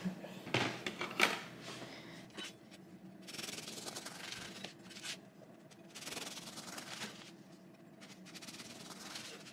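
A freshly baked crisp-crusted shokupan loaf being handled and worked: rubbing, rasping strokes in two stretches, with a few soft knocks.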